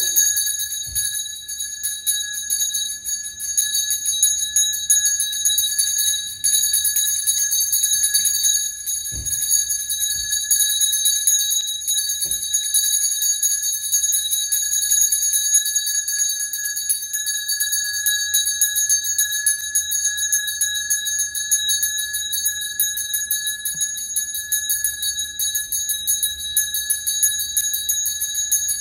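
Brass Daoist ritual handbell shaken fast and without pause: a steady high ringing chopped by the rapid strike of its clapper, with a few soft thumps about a second, nine, and twelve seconds in.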